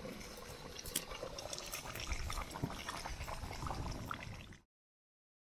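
Steady splashing of a fountain's water jet falling back into water, with scattered small clicks; it cuts off suddenly about four and a half seconds in.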